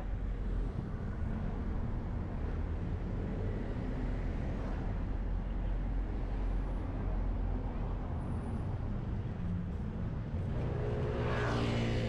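Steady rumble of road traffic on a busy city street. About ten and a half seconds in, a motorcycle engine passes close by and the sound gets louder.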